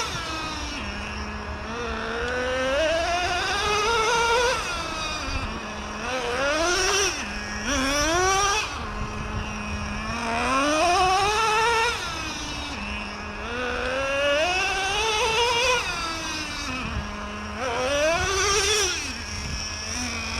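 Traxxas Revo 3.3's TRX 3.3 two-stroke nitro engine being throttled up and let off again and again. Each time its pitch climbs steadily from idle, holds briefly, then drops back, about every three to four seconds: gradual break-in throttle runs on a brand-new engine.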